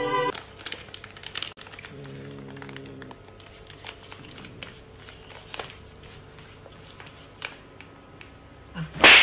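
A clear plastic bag of small dried fish crinkling and crackling in many small clicks as a cat paws at it and a hand holds it. A loud, sharp burst of noise comes near the end.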